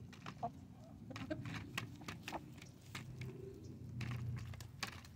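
A flock of hens clucking low while pecking at pumpkin pie in an aluminium foil pie tin, their beaks tapping the tin in quick, irregular clicks.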